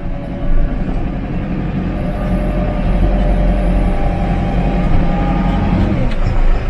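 Tractor engine running hard under load while dragging a heavy cherry tree held in a tree puller. It gets louder about half a second in, then holds steady.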